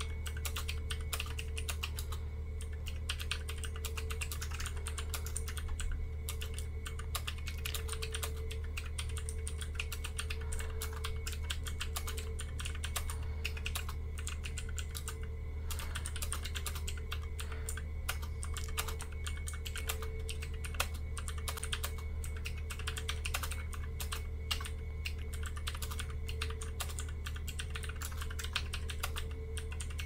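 Continuous typing on a Magic-Refiner mechanical keyboard with blue clicky switches: a rapid run of sharp key clicks with only a couple of short pauses, over a steady low hum.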